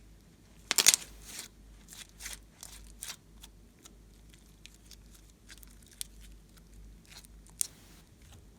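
Slime being worked by hand, giving off crackly pops and clicks, with a loud cluster about a second in and scattered single clicks after.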